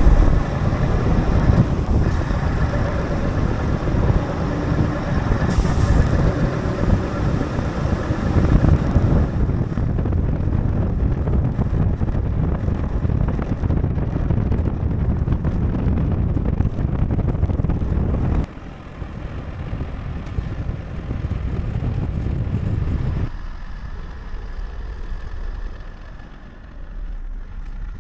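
Heavy timber truck running, a steady rumble mixed with wind noise on the microphone, which drops abruptly in level twice in the latter part.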